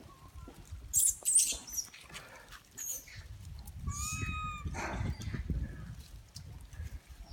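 Monkeys calling: a few shrill screeches about a second in, then a clear arched call with overtones about four seconds in.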